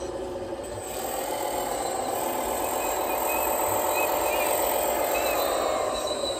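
Radio-controlled Cat 980L wheel loader model driving across paving stones: its drive running with a whine that rises and falls in pitch, growing louder about a second in as it comes closer.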